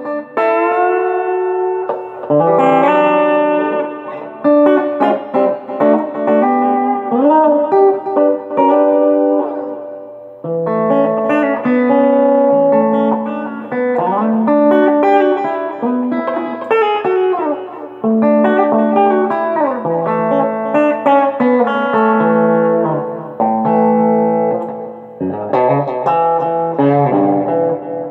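Electric guitar played through a bare Peavey Black Widow 1201-8 speaker driven by a Peavey Heritage VTX tube amp. It plays single-note lines and chords with some string bends, in phrases broken by short pauses.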